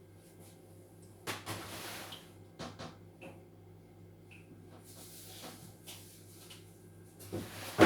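Kitchen handling sounds: a few scattered clicks and short rustles, then one sharp, loud knock near the end, like a cupboard door or a board set down on the counter. A low steady hum runs underneath.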